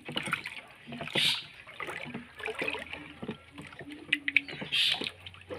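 Watery splashing and swishing as a hand stirs a bucket of liquid herbicide mix, with dark herbicide pouring in from a bottle. The sound comes in irregular sloshes, the loudest about a second in and near the end.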